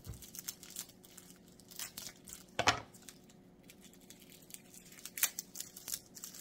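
Dry, papery garlic skins crinkling and tearing as cloves are broken off a head of garlic and peeled by hand, in small scattered crackles. A sharp knock comes about two and a half seconds in, and a smaller one about five seconds in.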